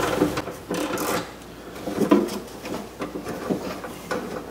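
Socket on a long extension turning a 10mm bolt out inside a car door: irregular metal scraping and clicking as the bolt is unscrewed.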